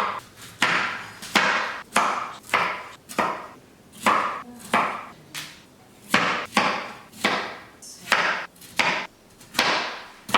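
Knife chopping cauliflower into small pieces on a cutting board: a run of sharp chops, roughly two a second, each with a brief crunch as the florets split.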